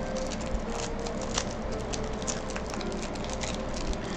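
Foil booster-pack wrapper crinkling and crackling in small irregular snaps as it is handled and peeled open by hand, over the steady hum of an air conditioner and fan.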